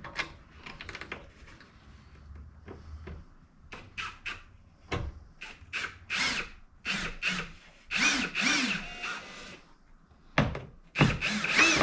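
Power drill driving screws into the wall in a series of short trigger bursts, its motor whine rising and falling with each one; the loudest bursts come near the end.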